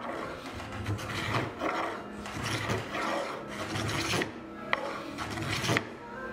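Spokeshave shaving a curved wooden chair rocker in about ten quick strokes, each a short rasping cut, with a few sharp clicks in the second half.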